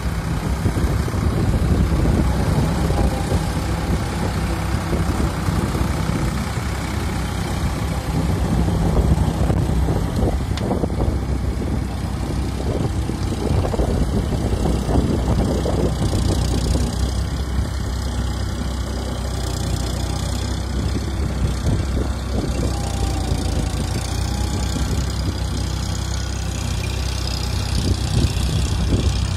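Eicher 551 4x4 tractor's diesel engine running steadily under load as it pulls a rotary tiller through flooded paddy mud.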